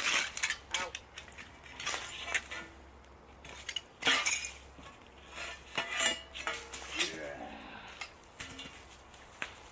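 Intermittent metallic clanks and scrapes, some with a short ringing tone, as a hot steel armour plate is worked out of a campfire.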